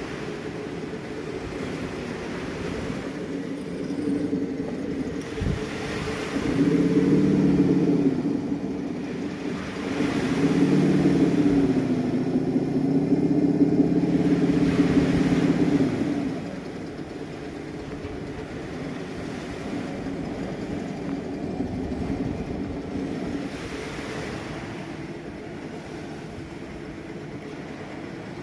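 Traxxas TRX-4 RC crawler's electric motor and drivetrain whining as it crawls over rock, the pitch rising and falling with the throttle. It is loudest in two stretches in the middle, then settles to a quieter steady whine.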